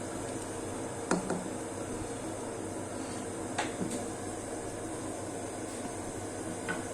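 Steady kitchen hiss with a few light clinks of cookware: two about a second in, two more past the middle, and one near the end.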